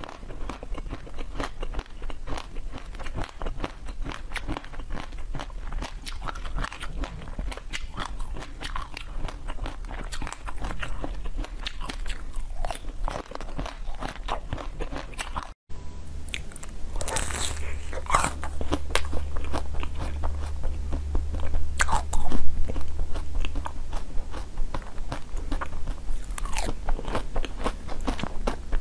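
Close-miked biting and chewing of frozen coated sweets: a dense run of small crisp crunches, then after an abrupt cut about halfway, a few louder separate bites with chewing between them.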